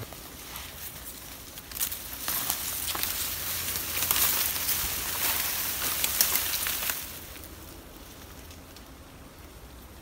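Rustling and crackling of tall grass and dry leaf litter as people walk through undergrowth, busiest in the middle and quieter near the end.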